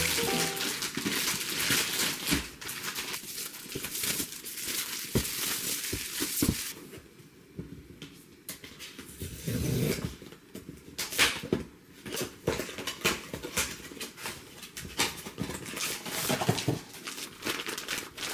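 Plastic or paper packaging crinkling and tearing as it is unwrapped, then scattered light clicks and knocks of things being handled.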